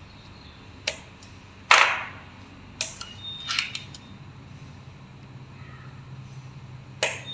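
Hand pliers clicking and snapping on thin electrical wire as the wire ends are worked for a joint: about five sharp clicks, the loudest about two seconds in, over a faint steady low hum.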